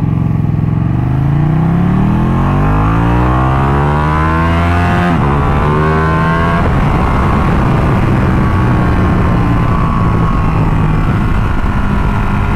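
Ducati Panigale 1299S L-twin engine heard from on board, accelerating hard with the pitch rising for about five seconds, a sudden drop at an upshift, a second short rise, then holding a steadier pitch. Wind rush over the microphone runs underneath.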